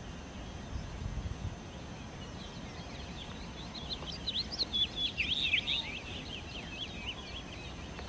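A small songbird, the sikatan londo, singing a fast, jumbled run of high, sharp notes that starts about two and a half seconds in and is loudest in the middle, over a steady background hiss.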